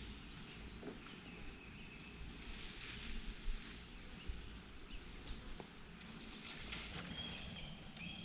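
Quiet outdoor ambience: a steady high insect drone with birds chirping now and then, and a few faint rustles and knocks.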